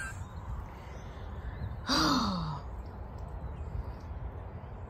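A woman sighs once about two seconds in: a breathy exhale with her voice sliding down in pitch, over a steady low background rumble.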